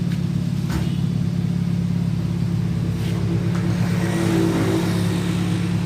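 Toyota Kijang's engine idling steadily through a newly fitted aftermarket HKS muffler with a resonator, giving an even, subdued exhaust note.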